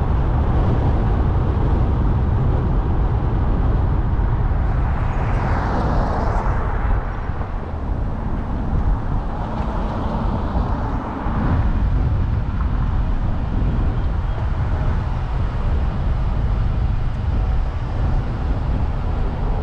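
A car driving along a road: a steady low rumble of engine and tyre noise, swelling briefly about five seconds in and again about ten seconds in.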